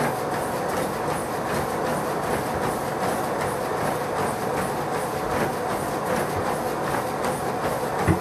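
Treadmill running under a jogger: steady belt and motor noise with a faint whine, and the footfalls striking the deck in an even rhythm. There is a heavier thump near the end.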